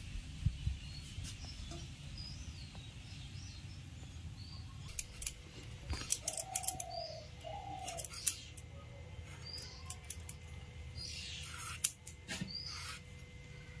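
A raw potato being peeled and sliced against a curved boti blade: scattered short scraping and snicking strokes, the sharpest near the middle and near the end. Birds chirp in short high calls throughout, with two lower calls in the middle.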